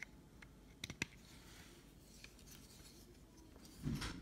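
Faint handling of plastic Transformers toy figures: a few light plastic clicks about a second in, soft rubbing, and a duller knock near the end.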